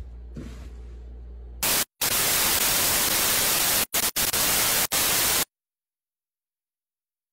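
Loud TV static hiss, a glitch sound effect, starting suddenly after a faint low hum. It drops out for split seconds a few times, then cuts off suddenly.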